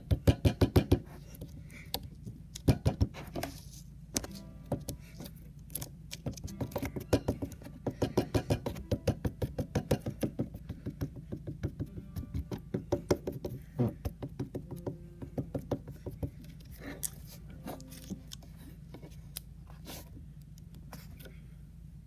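A lump of blue putty dabbed rapidly against a wooden board, making runs of quick sticky taps, about eight a second, broken by short pauses. A steady low hum runs underneath.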